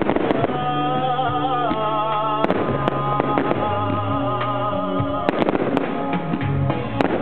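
Music with a held, wavering melody plays throughout a fireworks display, cut through by the sharp reports of firework shells bursting. The reports cluster at the start, about two and a half seconds in, around five to six seconds in, and once more near the end.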